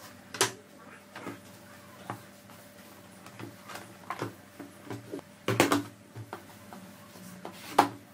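Scattered knocks and clicks of a stiff PVC sheet and a square plastic bar being handled and set down on a wooden table, irregular, with the loudest knocks about half a second in, around five and a half seconds in and near the end.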